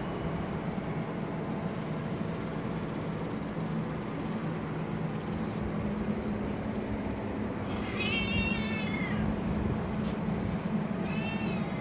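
A cat meowing twice, a long wavering meow about eight seconds in and a shorter one near the end, over a steady low mechanical hum.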